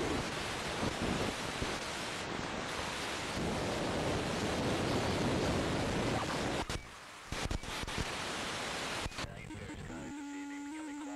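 Steady rushing noise, like wind on the microphone, that briefly drops out about seven seconds in. Near the end, a few held musical notes come in.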